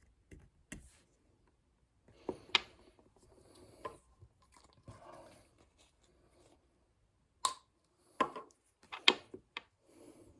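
Scattered small clicks and knocks with soft rustling between them, the sound of a pipe and small tools being handled on a work surface; the sharpest knocks come about two and a half seconds in and in a cluster near the end.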